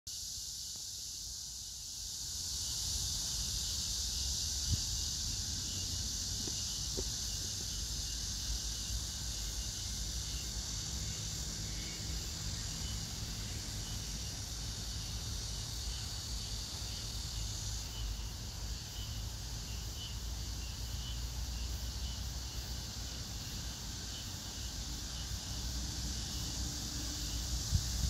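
Cicadas calling in a steady high-pitched chorus, mixed with other insects. The chorus rises about two seconds in, over a low rumble of wind on the microphone.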